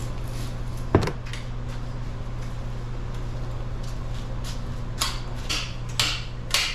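Metal hand tools and engine parts clanking during an engine teardown: one sharp ringing clank about a second in, then several lighter clinks near the end, over a steady low hum.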